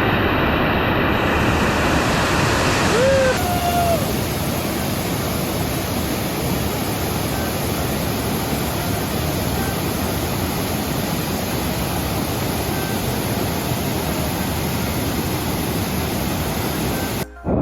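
Waterfall's rushing water: a steady, loud noise with no pause, its tone shifting slightly at a cut about three seconds in.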